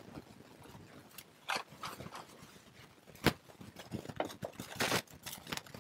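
Packaging being handled: scattered light clicks and taps of plastic and cardboard, the sharpest about three seconds in.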